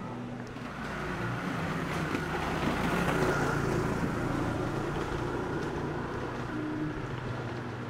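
A car passing by: engine and tyre noise that swells to a peak about three seconds in, then slowly fades.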